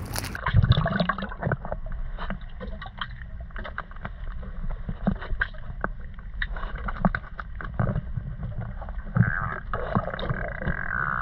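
Muffled underwater sound in a swimming pool, picked up by a submerged camera: a swirl of water about half a second in, then irregular clicks, knocks and bubbling as a cardboard box is handled and opened underwater.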